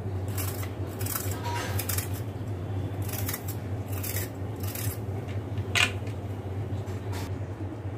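Vegetable peeler scraping the ridged skin off bitter gourd in short strokes, roughly one a second, with a sharper click about six seconds in. A steady low hum lies beneath.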